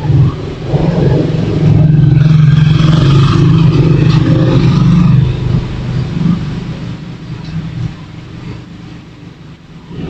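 A motor vehicle engine passing close by, loudest for about three seconds in the middle, then fading away.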